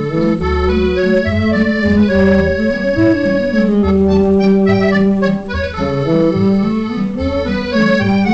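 Valse musette played by an accordion-led musette orchestra: the accordion carries the melody over regular bass notes, in an old shellac record recording with nothing above the upper treble.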